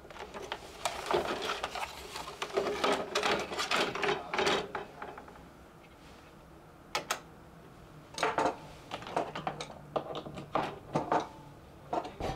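Plastic and metal parts of an air fryer clicking and clattering as it is taken apart by hand: a busy run of knocks for about the first five seconds, then scattered sharp clicks.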